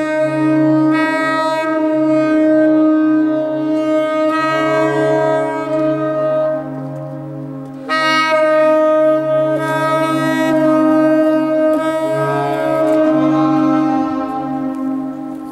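Saxophone holding long, sustained low notes in a concrete underground tunnel. The playing thins out from about six seconds in, then comes back strongly just before eight seconds.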